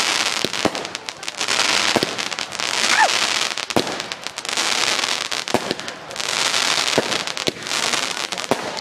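Fireworks display: waves of dense crackling that swell and fade about every two seconds, with sharp bangs scattered among them.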